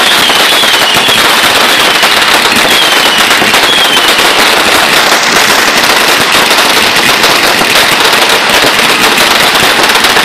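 A homemade firework of saturn missiles and roman candles tied together in a wooden crate, firing in rapid succession: a continuous, loud stream of fast pops and crackles. There are short falling whistles in the first few seconds.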